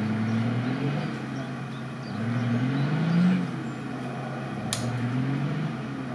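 An off-road 4x4's engine revving in three rising surges, each climbing in pitch and then dropping back. There is a single sharp click in the middle.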